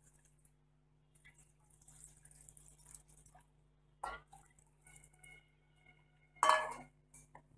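Water poured from a bowl into a pressure cooker of rice and mutton makes a soft splashing hiss. Two sharp utensil clinks ring against the cooker, the louder one near the end.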